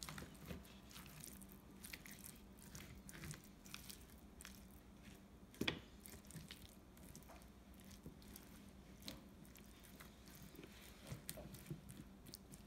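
Faint soft squishing and scraping as a spoon pushes chunks of raw chicken and sweet potato around a lined aluminium sheet pan, with scattered light taps and one sharper click about halfway.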